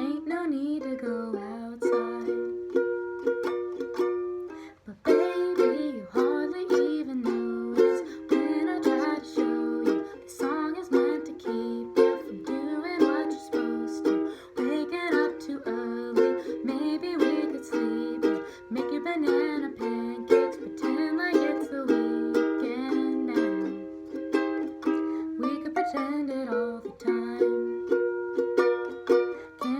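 Ukulele playing a gentle song, with a short break about five seconds in.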